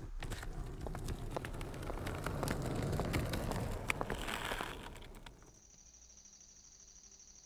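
Footsteps walking up to a house, with sharp clicks and knocks over a rushing noise that swells for about five seconds, then cuts off suddenly to a quieter hush with a faint, steady high whine.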